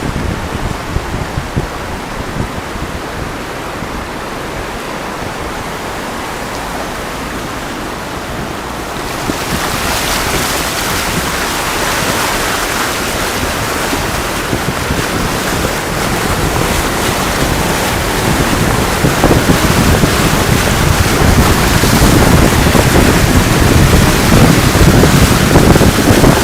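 Loud rushing water with wind noise on the microphone, a steady hiss that grows louder and brighter about nine seconds in.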